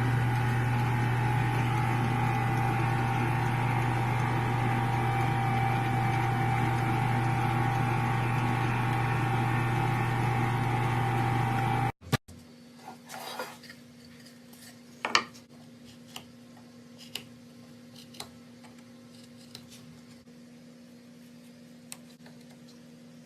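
A machine running with a steady hum and a constant whine for about twelve seconds, cutting off suddenly. After it, a faint low hum with scattered light clicks and clinks.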